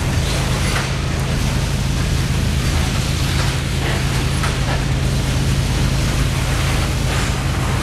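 Loaded coal gondolas of a long freight train rolling past on a grade: a steady rumble of steel wheels on rail under a constant low drone, with faint irregular clicks from the wheels.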